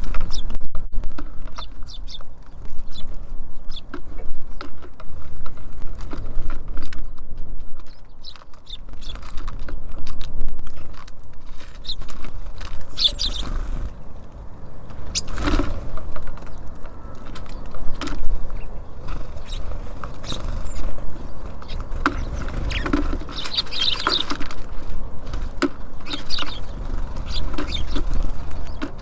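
Small songbirds at a feeder: many quick irregular taps and pecks on the feeder and seed, with short high chirps now and then. A steady low rumble runs underneath.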